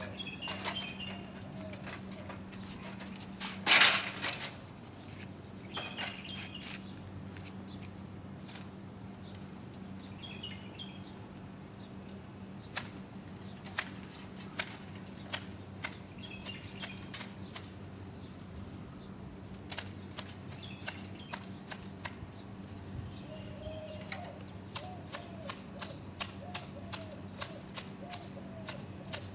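Hand pruning shears snipping a garden tree: sharp clicks, scattered at first, then about two or three a second in the second half, with a brief loud rustle about four seconds in.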